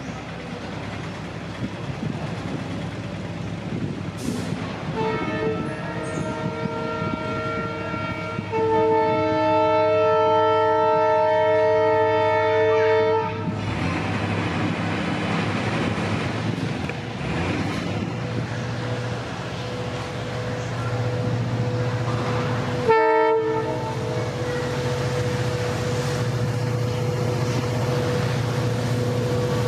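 WDP4D diesel-electric locomotive with its EMD two-stroke engine, hauling an express, approaching at speed. Its multi-tone air horn sounds as a held chord for about eight seconds, growing louder partway through. After that the engine's low drone and the rumble of the train rise as it nears, with one short horn note later on.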